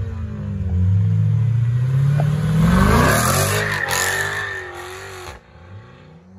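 Dodge Charger accelerating hard away, its engine pitch climbing for about three seconds to a loud peak, then fading as it pulls off down the road; the sound drops away abruptly near the end.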